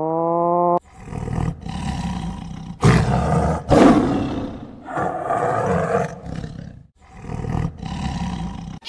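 A large animal roaring: a string of deep, rough roars, one after another, with a short break about seven seconds in. Just before them, a rising pitched animal call is cut off under a second in.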